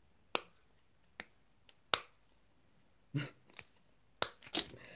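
Silicone push-pop fidget toy being pressed, its bubbles popping with sharp clicks: about eight pops at uneven intervals, coming faster in the second half.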